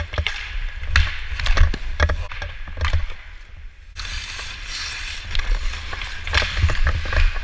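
Ice hockey play heard up close from a skater's own microphone: skate blades scraping and carving the ice, with sharp clacks of sticks and puck, over a low rumble of wind and movement on the microphone. A quieter spell ends abruptly about four seconds in.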